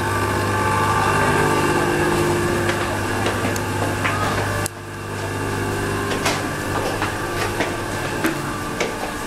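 Steady machine hum with a few scattered footsteps on tiled stairs. The hum drops abruptly in level about halfway through and carries on more quietly.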